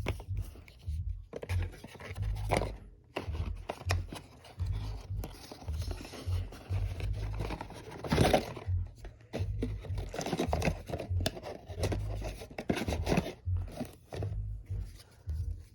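Cardboard and paper packaging being handled and opened: irregular rustling, scraping and tearing with small knocks.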